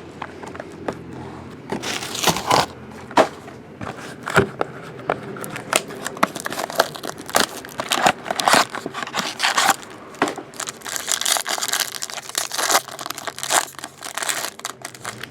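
Trading card packaging being torn open and crinkled by hand: a run of sharp crackles, rustles and tearing as the wrapping comes off a Star Wars Masterwork box and pack.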